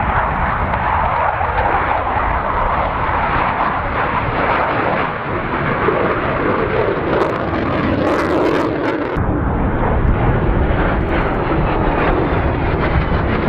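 Panavia Tornado GR4's twin RB199 turbofans running in full reheat (afterburner) as the jet takes off and climbs away: a loud, continuous jet roar.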